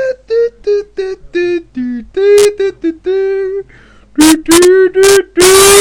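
A man singing a tune without words in a shrill, squawking voice, a comic imitation of an eagle singing. It starts with short notes, about three a second, then moves to longer held notes. The last two seconds are the loudest and harshest, close to a screech.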